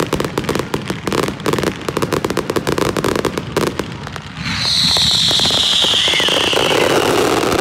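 Fireworks finale: dense, rapid crackling and popping from ground fountains and aerial bursts. About four and a half seconds in, the crackling gives way to a loud, high, steady whistle that sinks slightly in pitch over about three seconds.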